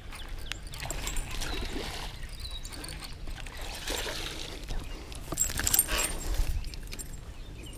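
A small largemouth bass splashing at the surface as it is reeled in on a baitcasting reel, then flopping on the grass about six seconds in.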